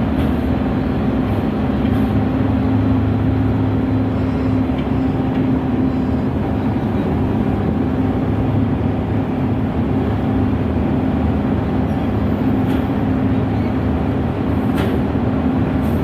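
A cargo ship's diesel engine running steadily under way: a loud, even, low drone with a steady hum.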